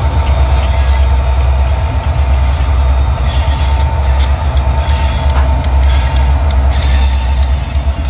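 Diesel-electric freight locomotives, among them Union Pacific GP40M 1479, rolling slowly past with their engines running in a steady low rumble. There is a steady mid-pitched tone and scattered sharp clicks and light squeals from wheels on the rails.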